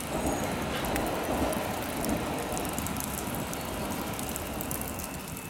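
Hamburg U-Bahn electric train rolling past on the embankment: a steady rush of wheel and rail noise that comes up at once and slowly fades over about five seconds as the train moves away.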